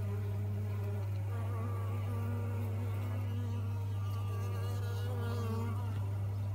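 Honeybees buzzing on the brood comb: a steady low hum with the wavering buzz of individual bees' wingbeats drifting up and down in pitch over it.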